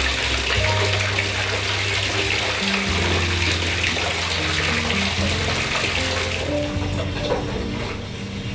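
Bath tap running into a filling bathtub, a steady rush of water splashing onto foam, fading near the end. Background music with steady low notes plays under it.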